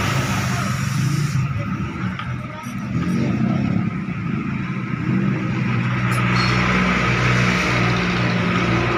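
A motor vehicle engine running steadily, a low hum under a noisy background.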